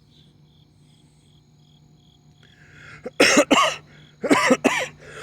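Crickets chirping faintly and evenly, about two or three chirps a second. About three seconds in, a man coughs loudly, four coughs in two quick pairs.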